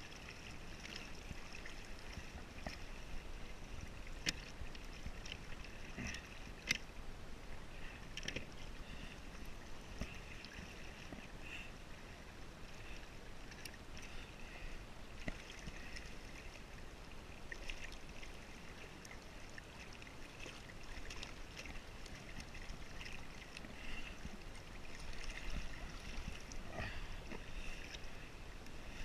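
Small waves lapping and gurgling against a kayak's hull, with a couple of sharp knocks a few seconds in.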